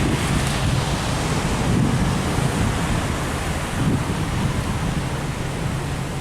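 Wind rushing across the microphone, with a vehicle engine running underneath as a steady low hum.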